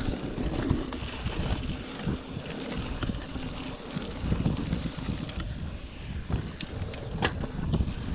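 Wind buffeting the microphone of a handlebar-mounted action camera over the rumble and rattle of a mountain bike riding on a dirt road, with a few sharp clicks near the end.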